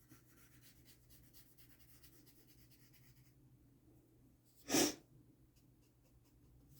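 Faint scratching strokes of drawing on paper, then a single short, loud burst of breath a little under five seconds in.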